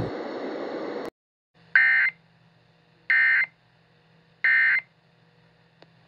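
Emergency Alert System End of Message code: three short, identical bursts of warbling SAME digital data tones, about 1.4 s apart, that close the alert. Before them a hiss cuts off suddenly about a second in.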